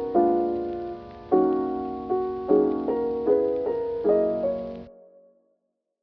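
Piano background music, struck chords and notes that ring and fade, dying away about five seconds in and ending in silence near the end.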